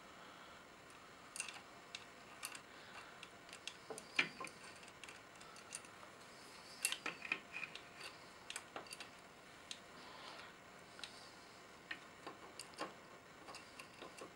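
Light, irregular metallic clicks and clinks of a motorcycle intake camshaft and its cam chain and sprocket being handled and seated in a Triumph Daytona 675 cylinder head.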